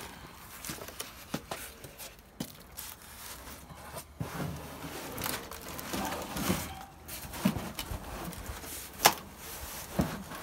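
Objects being handled and shifted about: rustling, scraping and scattered knocks, with a sharp knock about nine seconds in and another near the end.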